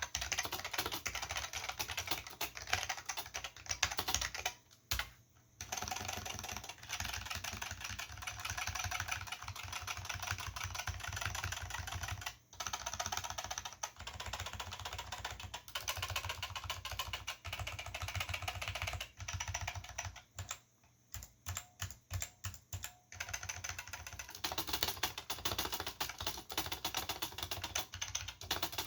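Fast, steady typing on an Olivetti M15 keyboard's Futaba MA mechanical switches with PBT keycaps. It pauses briefly about five seconds in and again around twelve seconds, and near the two-thirds mark slows to a run of separate keystrokes before the fast typing resumes.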